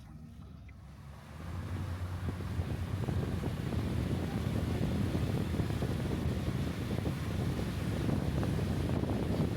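Wind buffeting the microphone over a low rumble. It grows sharply louder about a second and a half in and stays loud.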